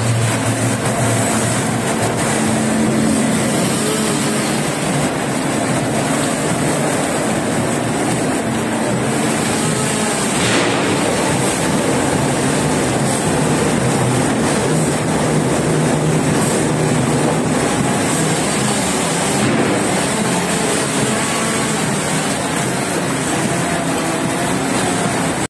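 Rotary veneer peeling lathe and its conveyors running as a log is peeled into veneer sheets: a loud, steady mechanical noise, with one brief sharp knock about ten seconds in.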